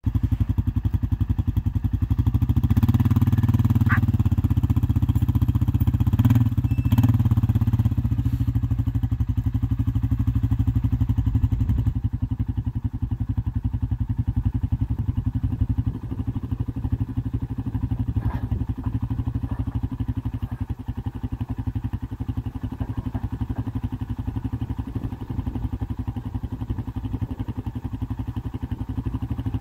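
ATV engine running steadily, louder for several seconds near the start, then settling to a quieter idle.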